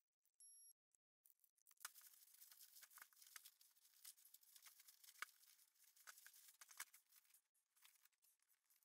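Near silence, with faint crinkles and a few scattered clicks of plastic sheeting being peeled off a resin casting; the clearest click comes about five seconds in.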